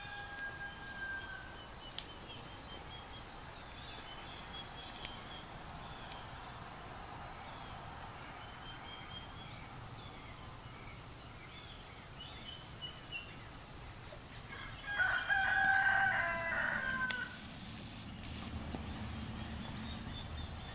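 A rooster crowing once, a long crow about fifteen seconds in, over faint high chirps scattered through the background.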